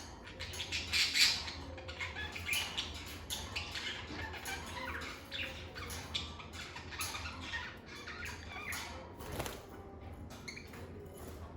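Lovebirds chirping and squawking in a rapid, continuous run of short, sharp calls, with the loudest burst about a second in.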